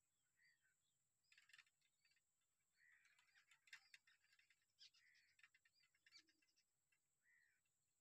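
Jungle babblers calling faintly: strings of harsh, rasping chatter about a second and a half in and again from about three to six seconds in, with short arched notes in between.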